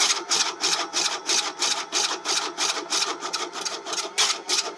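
Homemade vegetable chopper's spinning disc blade shredding leafy greens, a rapid even chopping of about six cuts a second.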